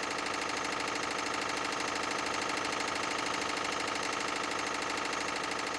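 Stationary diesel engine running steadily with an even, rapid beat.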